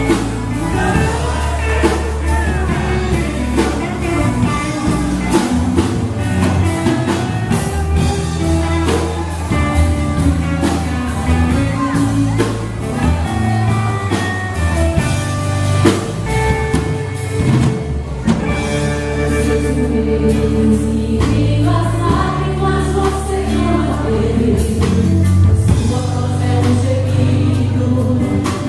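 Gospel worship music played by a band with singing, over steady drums and a strong bass line.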